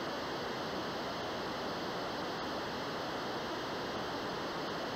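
Steady, even rushing hiss of noise, like static or wind, holding at one level with no pitch or rhythm.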